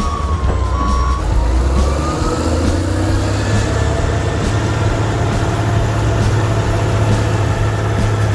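Heavy vehicle engine sound: a steady low drone with faint whines gliding up and down over it.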